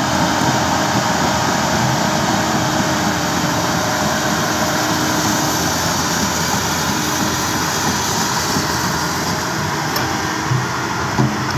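Diesel engine of a Hyundai 330LC-9S crawler excavator running steadily at close range, with a few faint knocks near the end.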